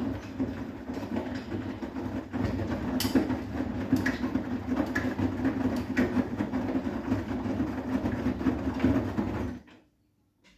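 Bosch WGA252Z0TR front-loading washing machine turning its drum with a wet load of towels and bathrobes: a steady rumble with sharp knocks roughly once a second. The drum stops suddenly near the end.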